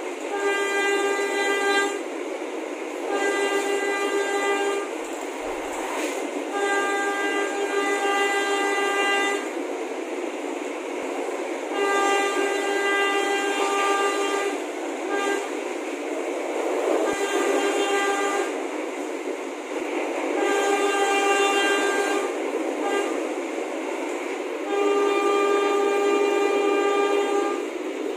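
Train air horn sounding a string of blasts, each about one to three seconds long with short breaks between, every blast a chord of several steady notes. A steady rumbling noise lies underneath.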